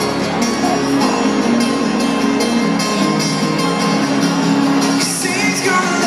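Live pop band playing a song in a stadium, heard from the crowd: sung vocals over strummed acoustic guitars.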